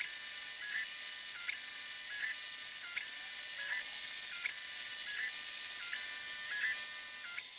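CNC router milling end-grain hardwood: the router spindle gives a steady high whine, while lower motor tones jump back and forth in pitch every second or so as the gantry moves the bit along the groove.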